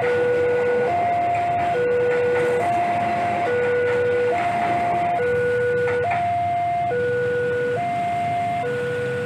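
Railway level-crossing warning alarm sounding a two-tone signal, a high and a low note alternating a little under once a second, over the rumble of a passing passenger train. The train noise eases off near the end as the last carriage clears the crossing.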